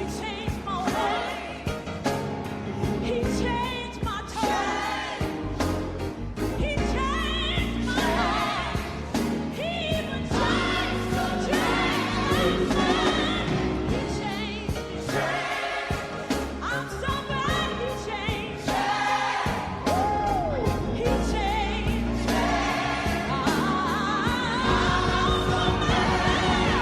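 Gospel singing with band accompaniment: voices singing with vibrato over strong bass and a steady drumbeat.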